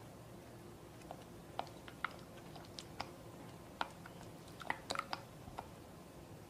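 Silicone spatula stirring a thick cream cheese and egg yolk batter in a glass bowl: irregular light clicks and wet ticks, about a dozen, clustered between about one and five and a half seconds in, over a faint steady hum.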